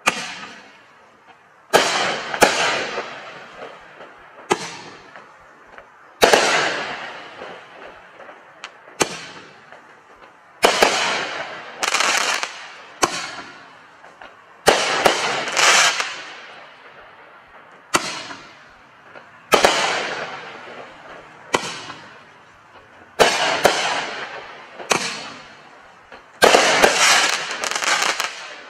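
Heavy Load 'Hellraiser' 500g 16-shot double-breaker fireworks cake firing: a long series of sharp aerial shell bangs, many in close pairs as each shell breaks twice, each trailing off over about a second. Several bangs come in a quick cluster near the end.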